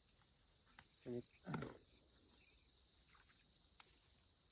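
Steady high-pitched chorus of insects chirring, with a short voice-like call about a second in.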